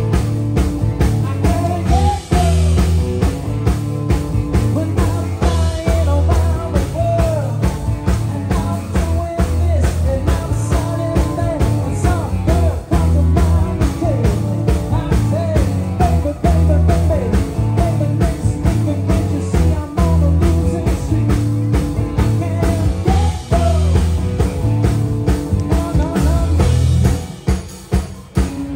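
Live rock band playing loud, with drum kit and guitar keeping a steady beat and a melody line on top. The sound dips briefly near the end.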